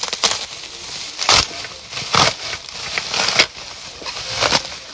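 Rustling and rubbing as a latex prop glove is pulled on and handled, in about five short bursts.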